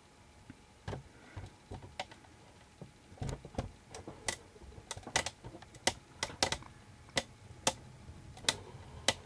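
Irregular sharp taps of raindrops striking the window glass and sill in a heavy thunderstorm downpour, sparse at first and coming thicker and louder after about three seconds.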